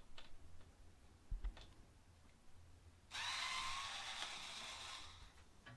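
Small electric screwdriver whirring for about two seconds, about halfway through, as it backs out a screw holding the mixer's cooling fan. A faint knock comes a little earlier.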